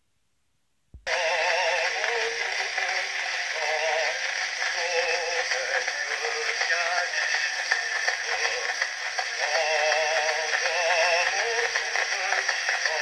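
Cylinder phonograph with a brass horn playing a circa-1904 Pathé Salon cylinder: a male singer's voice with a wide vibrato over steady surface hiss, thin with little bass. Playback starts about a second in with a click.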